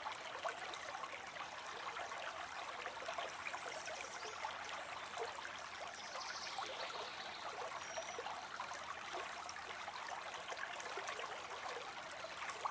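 A river flowing steadily, a constant rushing babble of water. A faint high bird note or two comes through near the middle.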